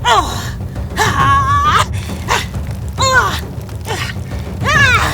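A woman's short, forceful attack cries and grunts, four in quick succession: brief shouts that fall in pitch, and a longer wavering cry about a second in. A steady low music bed runs underneath.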